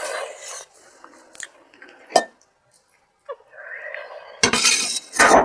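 Close-up eating sounds over a meal plate: a sharp clink against the plate about two seconds in, with a rustle at the start and a loud noisy burst near the end.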